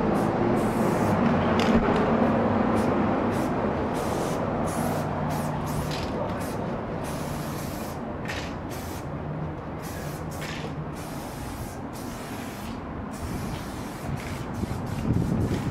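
Aerosol spray-paint can hissing in repeated bursts as paint is sprayed onto a wall, over a steady low hum.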